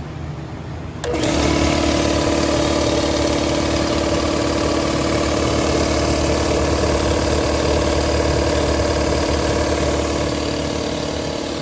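A Campbell Hausfeld 3.7 HP, 240-volt single-phase air compressor switches on about a second in and runs steadily. Its electric motor and pump keep a constant hum as they pump air into the 60-gallon tank.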